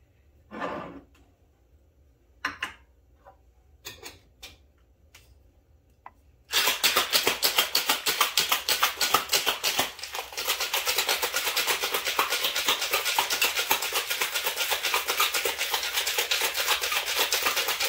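Stainless-steel cocktail shaker shaken hard for about twelve seconds, ice rattling inside it in a fast, steady rhythm, with a brief break about ten seconds in. Before the shaking, a few light clicks and knocks.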